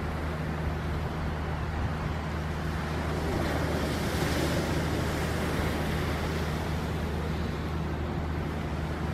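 Ocean surf on a beach: a wave breaks and washes up the sand, swelling about three and a half seconds in and fading by about six seconds. Underneath runs a steady low hum.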